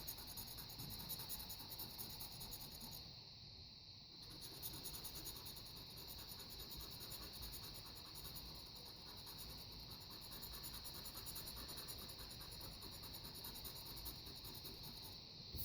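Knife blade scratching the coating off a lottery scratch-off ticket in rapid, even strokes, pausing briefly about three seconds in, over a steady high hiss.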